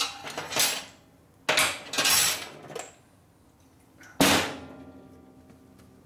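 Metal tools and parts clattering and clinking in three bouts, the last a sharp metallic clank about four seconds in that rings for about a second.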